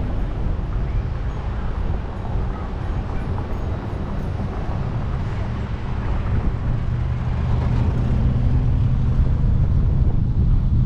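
A car's low rumble of engine and road noise, heard from a camera on its roof with wind on the microphone. It grows louder over the last few seconds as the car pulls away.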